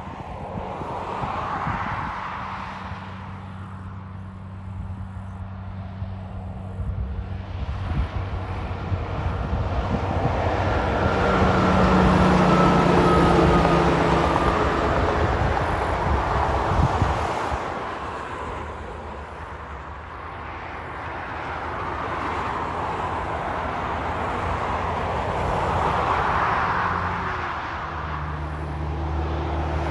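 Highway traffic passing, the sound swelling and fading as vehicles go by. The loudest is a heavy truck with an empty log trailer passing about twelve seconds in, its diesel engine hum under the rush of tyres on the road. A fresh engine hum comes in near the end as another truck approaches.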